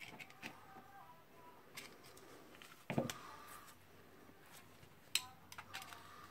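Light scattered clicks and metallic taps of hand tools working at a retaining ring in a Makita HR2470 rotary hammer's barrel, with a stronger knock about three seconds in and a sharp click about two seconds later.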